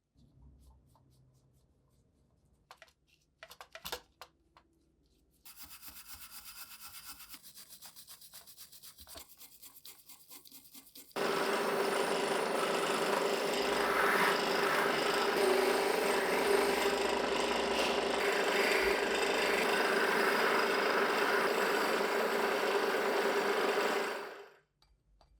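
A power tool abrading the vise's rusty metal: a steady rasping noise with a constant motor tone. It starts suddenly about eleven seconds in, after a few clicks and some softer scraping, and stops abruptly near the end.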